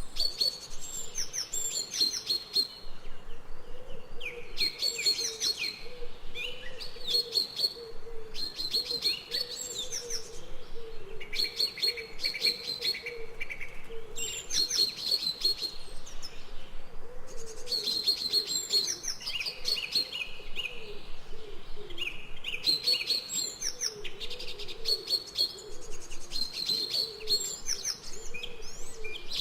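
Birds chirping and calling in short, quick phrases that repeat every second or two, over a continuous low wavering call, in a jungle ambience recording.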